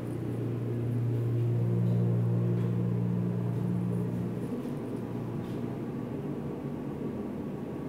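Elevator car riding, with a steady low machine hum from the drive that fades down about four and a half seconds in.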